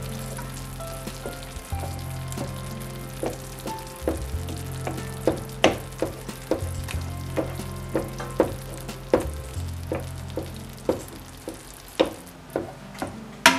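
Grouper fillets and diced cherry tomatoes sizzling in oil in a non-stick frying pan while a wooden spatula breaks up the fish. The spatula taps and scrapes against the pan roughly twice a second, the taps getting sharper from about three seconds in.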